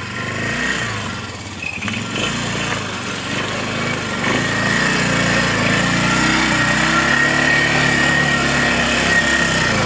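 Four-wheeler (ATV) engine running as the machine drives through a muddy ditch toward the microphone, getting louder as it nears, with a steady high whine from about halfway.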